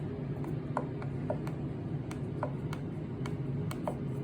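Scattered light clicks or taps, irregular, about two or three a second, over a steady low hum.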